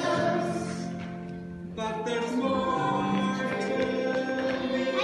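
A group of young children singing a song together, held notes changing line by line, with a short dip about a second and a half in before the next line starts.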